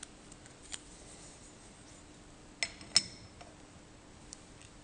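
Spanner being handled and hooked onto the lock collar of a lathe tailstock: a few light clicks, then two sharp ringing metal clinks about two and a half and three seconds in.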